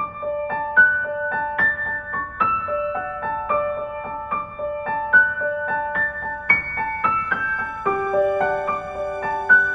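Background music: a gentle, steady run of piano or keyboard notes, several a second.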